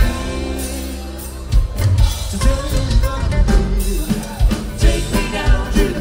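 Live bluegrass-style band of banjo, acoustic guitar, double bass and drum kit playing a rock cover, with a sung vocal. For about the first second and a half a chord is held without drums, then the drums come back in with a steady beat.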